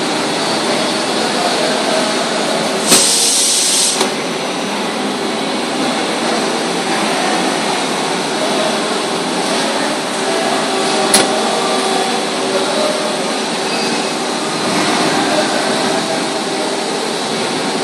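Large CNC machine's swivelling milling head indexing round 180 degrees, with steady machine noise, a short burst of air hiss about three seconds in and a sharp click about eleven seconds in.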